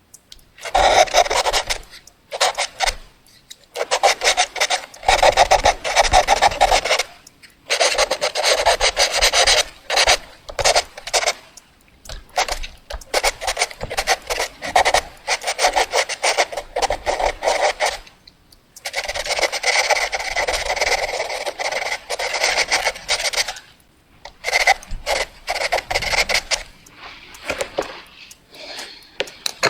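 Fast drawing on paper: rapid scratchy strokes of a drawing tool, in runs of a few seconds broken by short pauses.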